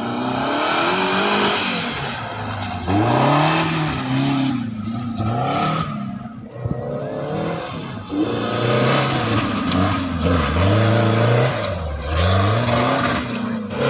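Off-road racing buggy's 1000cc-class engine revving hard and easing off again and again as it drives up a loose dirt slope, its pitch rising and falling every second or two.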